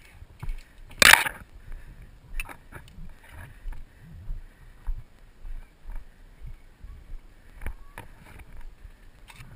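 Footsteps of a person moving quickly along a dirt forest trail, with leaves and twigs crunching and brush rustling in an uneven rhythm. A loud, brief rush of noise about a second in.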